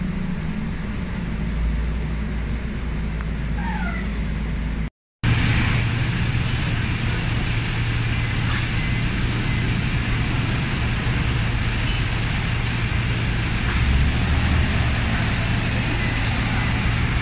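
Steady engine and road noise inside the cabin of a moving MAN A95 double-decker bus. It breaks off abruptly about five seconds in, and then the same bus's diesel engine is heard idling at a stand with a steady low hum.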